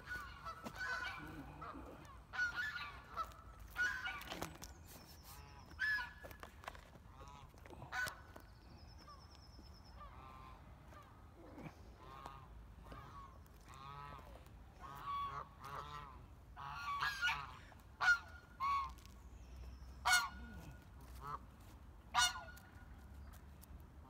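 Birds calling with short honking calls, many of them in an irregular series, several much louder than the others.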